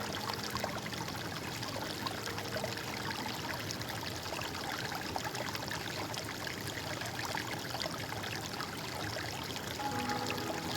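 Water flowing steadily, with many small splashes and gurgles in it, as in a stream running over rocks.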